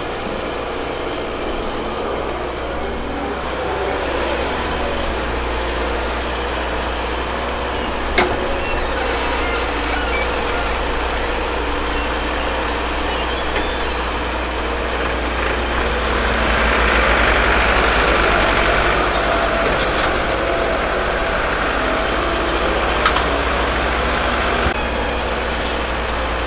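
Excavator at work, its diesel engine running steadily and swelling louder for a few seconds past the middle. A sharp knock comes about eight seconds in and another near the end.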